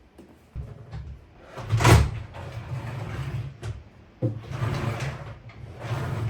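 Wooden drawer being slid in and out of its cabinet on wooden runners, with a rumbling slide and a sharp knock about two seconds in as it hits home. The runners have been sanded so that the drawer runs smoothly.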